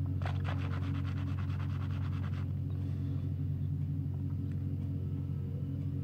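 Small ride-on road roller's diesel engine running steadily, a low even hum. A fast rattle joins it for about two seconds near the start.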